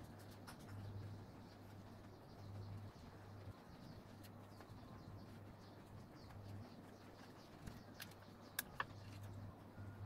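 Faint handling of a wooden table tennis blade as rubber bands are wound around its handle to clamp the glued handle scales, with a few sharp clicks near the end. A low hum pulses on and off underneath.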